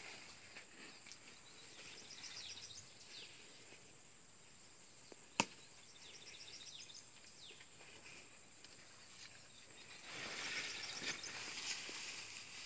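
Faint field ambience with a steady high whine and scattered faint chirps, one sharp click about five seconds in, then the rustle of footsteps through tall grass from about ten seconds in.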